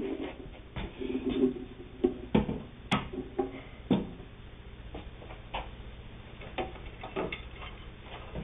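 Irregular clicks and knocks of a vintage Singer 99 sewing machine and its bentwood case being handled, about one every second, with one sharper click about three seconds in.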